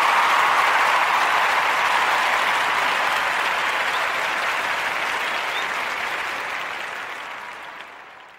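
Crowd applause, a dense even clatter of clapping that holds steady for a few seconds and then fades out gradually.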